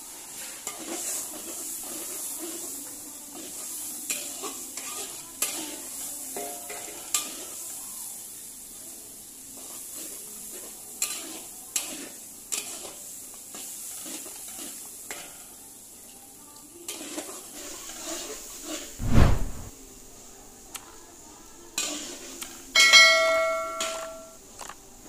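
Long metal ladle scraping and clinking against a large wok as egg is stir-fried with meat and chillies, over a steady sizzle. A heavy dull thump comes about three quarters of the way through, and near the end the metal gives one ringing clang.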